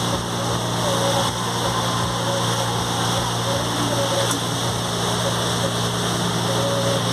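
A riverboat's engine droning steadily under a broad, even hiss, with faint voices in the background.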